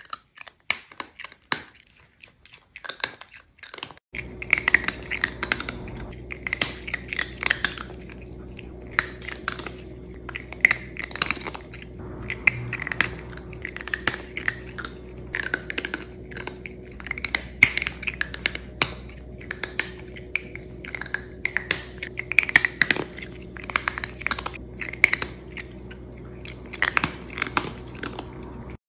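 A cat chewing crunchy food, with rapid crunches in bursts and short pauses between them. A steady low hum sits in the background from about four seconds in.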